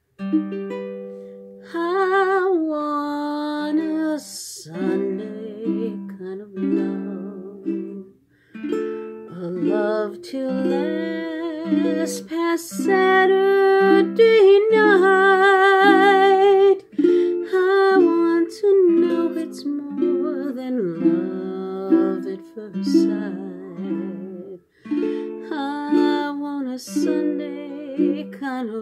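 A ukulele playing slow chords while a woman sings a ballad over it, her voice wavering with vibrato on the held notes. The ukulele starts alone, and the singing comes in about two seconds in.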